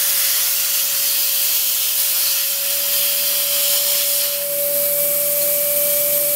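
Compressed air hissing loudly as it leaks past the air nozzle of an air turbine spindle, with a steady whine from the spinning turbine. The leak comes from the nozzle sitting too low against the block; the hiss changes about four seconds in as the nozzle is raised.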